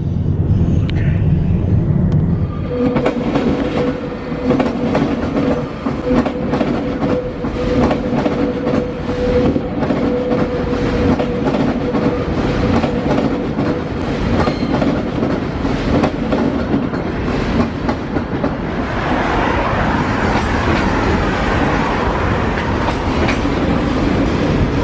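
Electric passenger trains moving on station tracks: a close train passes with heavy rumble at first, then wheels click over rail joints and points with a steady whine. Near the end a warbling whine rises and falls above the clatter.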